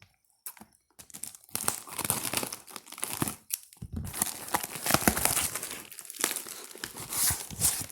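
Packing tape being peeled and torn off a taped parcel, with the packaging crinkling. It is an irregular crackling that starts about a second in, with a short pause in the middle.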